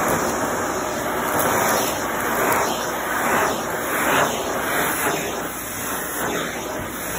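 Shark vacuum cleaner running on carpet, its nozzle swept back and forth. The suction noise rises and falls about once a second as the nozzle passes over the pile.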